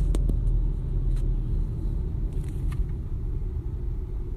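Steady low road and engine rumble heard from inside a moving car's cabin, with a few light clicks near the start.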